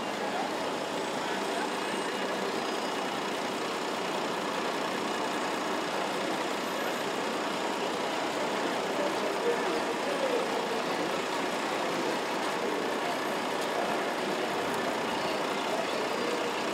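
Busy city street ambience: a steady hum of traffic mixed with the indistinct chatter of passers-by, with no single sound standing out.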